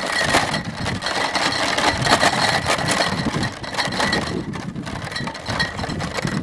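Glass bottles rattling and clinking in a plastic crate on a bicycle's rear rack as the bike rolls over cobblestones, a dense run of clattering.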